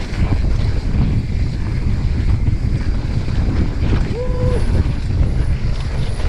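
Wind buffeting the camera microphone and trail rumble from a mountain bike descending a fast, flowy trail, with a brief steady squeal about four seconds in.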